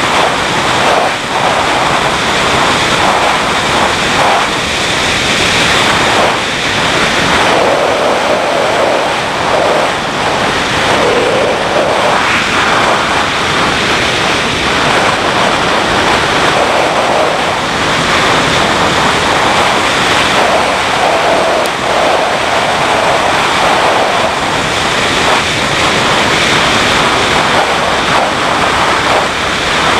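Steady rush of wind noise on the microphone of a moving motorcycle, with the BMW G650GS's single-cylinder engine running underneath.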